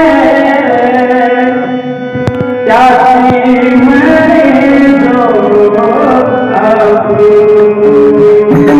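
Marathi devotional abhang music: long held notes from a singing voice, drawn out over steady sustained accompaniment tones, with a few drum strokes.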